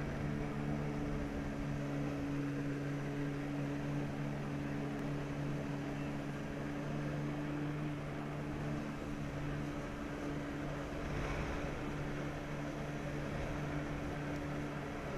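Jet ski engine running at a steady pitch, driving the pump that feeds water through the hose to a flyboard's jets.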